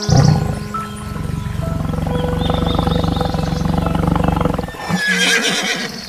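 Tiger growling in one long, low rumble that stops shortly before the end, over background music. Near the end a horse calls briefly.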